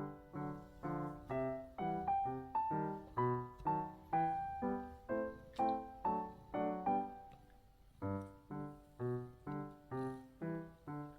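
Background piano music: a steady run of single chords or notes, about two to three a second, with a brief pause around two-thirds of the way through.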